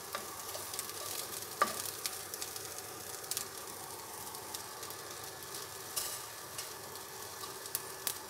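Wooden spatula stirring and scraping whole shallots, garlic, chillies and coriander and cumin seeds as they dry-roast in a nonstick wok, over a steady faint hiss from the hot pan. A few sharp clicks and knocks of the spatula and ingredients against the pan, the loudest about a second and a half in.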